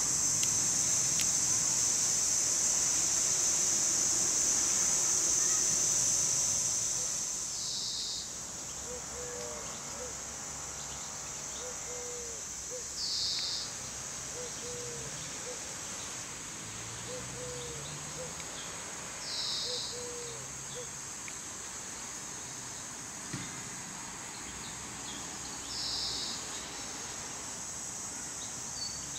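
Summer insects in the trees keep up a steady high shrill buzzing, loud for the first several seconds and then quieter. Short louder bursts come about every six seconds, and a low bird call repeats through the middle.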